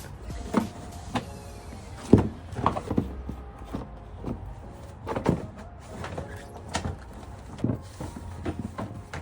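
About ten irregular sharp knocks and clunks, the loudest about two seconds in, over a low steady hum.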